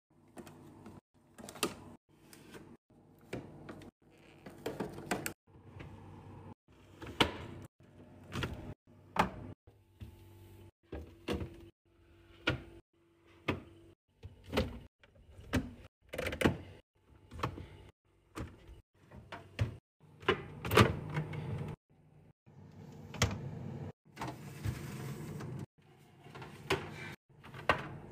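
Containers and food items handled and set down while restocking a fridge: an irregular string of clicks, taps and knocks, broken by short silent gaps.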